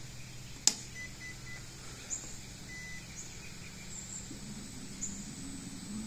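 A sharp click, then a few short, high electronic beeps, then about four seconds in a low electric-motor hum comes up and rises a little in pitch: the 36 lb thrust trolling motor starting to turn under the joystick.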